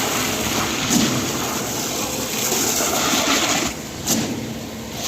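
Concrete pour in progress: a steady rushing, sloshing noise of wet concrete and the concrete pump working, with a sharp knock about a second in and another about four seconds in.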